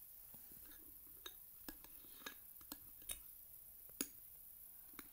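A metal spoon stirring thick slime in a ceramic bowl: a scattering of faint clicks and clinks of the spoon against the bowl, with one sharper clink about four seconds in.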